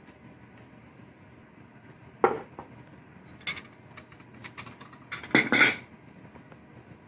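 Ceramic bowls and plates being set down on a wooden table: a sharp knock about two seconds in, a few light clicks, then a louder clatter of dishes and metal spoons near the end.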